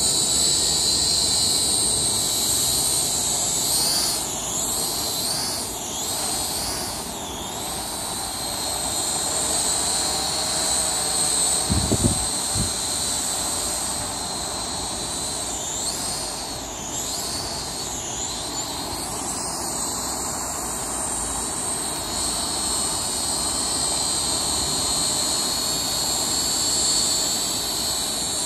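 Quadcopter drone's motors and propellers whining steadily at a high pitch as it flies. The pitch wavers up and down twice, and about twelve seconds in there is a brief low thud.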